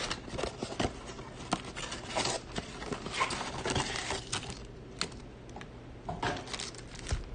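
Cardboard trading-card blaster box being opened by hand: scattered taps, scrapes and rustles as the flap is pulled open and the wrapped card packs slide out.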